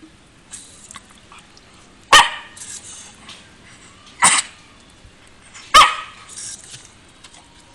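Shiba Inu barking three times: short, sharp single barks about a second and a half to two seconds apart.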